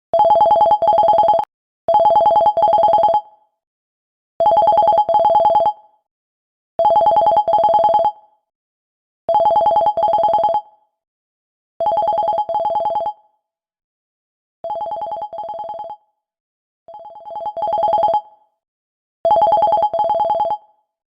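Vivo phone's call ringtone: a fast electronic warble between two tones, rung in double bursts about every two and a half seconds, nine rings in all. Two rings a little past the middle are quieter, the second of them swelling in.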